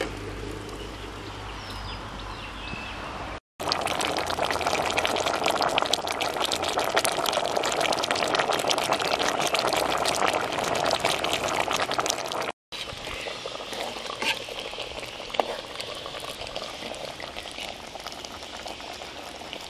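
Sweet potato pieces boiling in water in an aluminium pot on a gas stove, a dense crackle of bubbling, louder from about three and a half seconds in until an abrupt cut near thirteen seconds, then quieter. The sweet potatoes are cooked through and starting to go soft.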